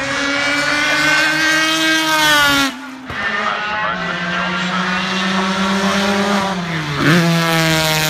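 A racing car's engine at high revs, rising in pitch as it accelerates. It breaks off sharply for a gear change a little under three seconds in, pulls again, and dips and climbs in pitch near the end.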